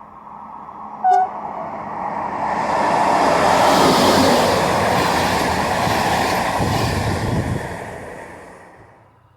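A train's horn gives one short, sharp toot, then the train passes, its running and wheel noise building up, holding for several seconds and fading away.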